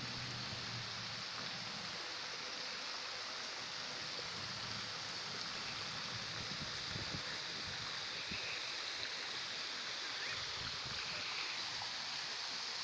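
Park fountain's water jets spraying and splashing into the basin: a steady, even rush of falling water.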